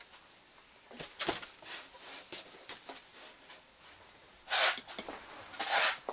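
Handling noise from a Mercedes-Benz W215 CL-Class grille being turned and set down by hand: a cluster of light knocks and clicks about a second in, a few smaller clicks after, then two short rustling scrapes near the end.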